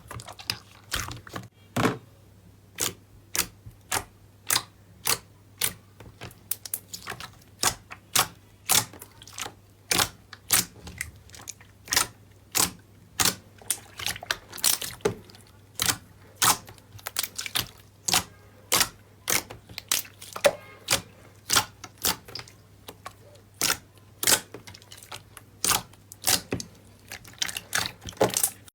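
Slime being worked, making sharp clicking pops about twice a second, over a faint steady hum.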